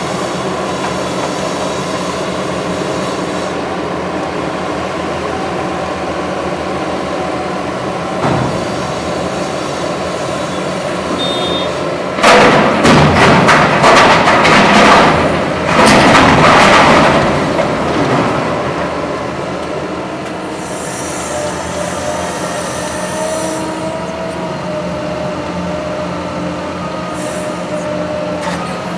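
Liebherr 944C hydraulic excavator's diesel engine running steadily under load. About twelve seconds in, a loud clattering crash lasts some five seconds as a bucketful of brick demolition rubble is dumped into a steel tipper trailer. After that the engine and hydraulics run on as the machine swings back to the pile.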